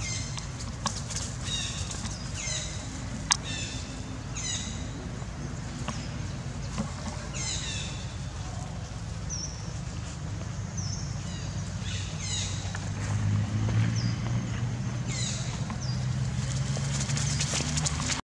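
High, downslurred chirping calls come in short groups every second or two, with a few brief thin whistled notes in the middle, over a steady low hum. A single sharp click sounds about three seconds in.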